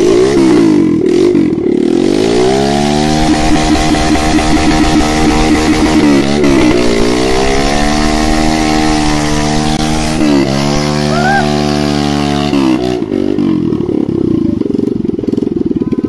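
Small motorcycle engine revved hard in first gear with its rear wheel spinning in creek water, throwing up a tall jet of spray. The revs climb over the first couple of seconds, hold high with two brief dips, then drop back to idle about three seconds before the end.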